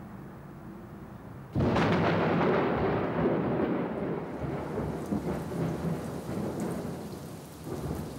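A sudden thunderclap about a second and a half in, rumbling on and slowly fading over several seconds, with rain beneath it.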